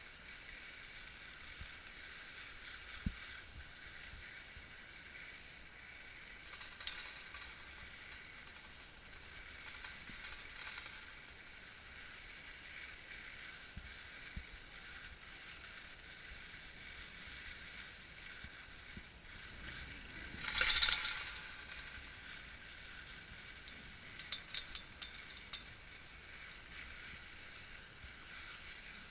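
Skis sliding over snow while towed uphill on a T-bar lift, a steady soft hiss. About two-thirds of the way through comes a louder rush of noise lasting about a second, then a few quick clicks.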